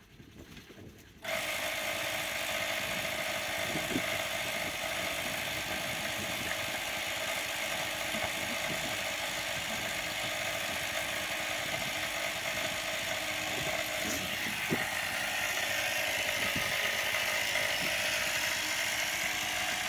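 Portable electric air compressor (a tire inflator) switching on about a second in and running steadily with a constant motor hum, used to pump up a flat truck tire.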